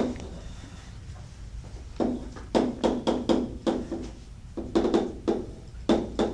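Chalk tapping against a blackboard as symbols are written: a quick, uneven run of short taps starting about two seconds in, with a brief pause near the middle.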